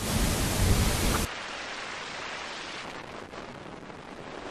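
Steady rushing wind noise on the microphone. It is louder for about the first second, then drops suddenly to a fainter, even hiss.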